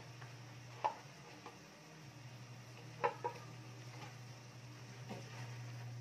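A steady low hum with a few short, sharp sounds: one about a second in, a quick pair about three seconds in, and a fainter one near the end.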